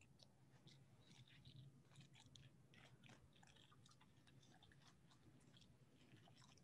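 Near silence with faint, scattered crinkles and ticks of a plastic vacuum bag being peeled off a boneless ribeye roast.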